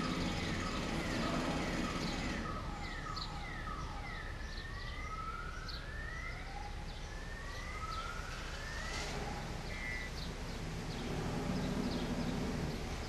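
Distant siren wailing over steady street background, its pitch sweeping up and down again and again and fading out near the end.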